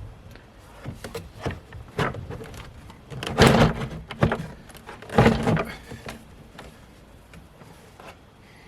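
Plastic dashboard trim covers being handled and pushed back into place: a scatter of clicks and knocks, with two louder scraping bursts about three and a half and five seconds in, then quieter.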